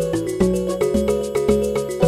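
Instrumental background music with a steady beat, a low note struck about twice a second under a repeating melody.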